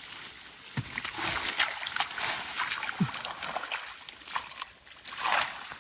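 Hands splashing and sloshing through shallow muddy water and grass, with many short sharp splashes and rustles. Two brief low sounds come about a second in and about three seconds in.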